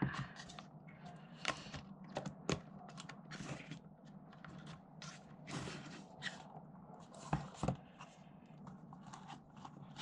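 Wooden panels and slats of an old Japanese puzzle box clicking, knocking and scraping as they are slid and the box is turned over in the hands, with two sharper knocks about seven and a half seconds in.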